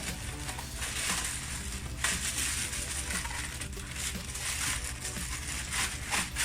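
Packaging being handled: irregular rustling and crackling, with a sharper, louder crackle about two seconds in, over a steady low hum.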